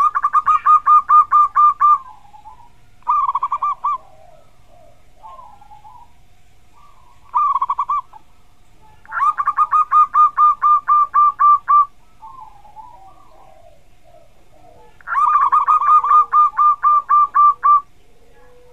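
Zebra dove (perkutut) singing: three long phrases of rapidly repeated cooing notes, about five a second, each lasting two to three seconds, with short snatches of song between them.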